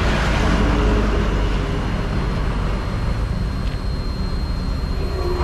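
Heavy diesel truck engine running steadily at idle, with a swell of road noise in about the first second.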